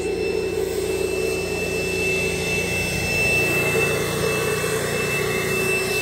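A wet/dry shop vacuum and a pressure washer running together: a steady drone with a thin, constant high whine.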